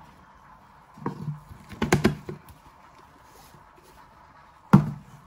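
Handling noise from a jar of dried herbs being moved by gloved hands: a few light taps and clicks about one and two seconds in, and a sharper knock near the end.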